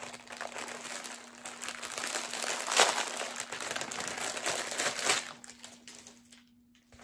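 Packaging crinkling and rustling as a wrapped item is opened by hand. It is loudest about three seconds in and dies down after about five seconds.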